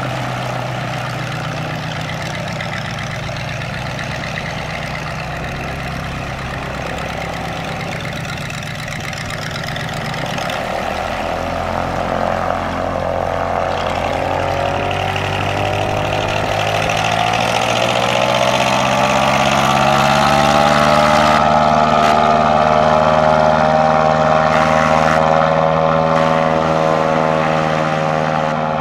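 Airboat engine and large caged propeller, fitted with a new 70 x 36 prop, running at low speed, then revving up from about ten seconds in to a higher, louder, steady pitch. The pitch eases off slightly near the end.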